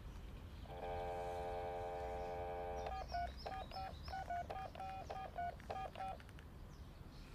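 Telephone dial tone holding steady for about two seconds, then a quick run of about ten touch-tone (DTMF) key beeps as a number is dialled.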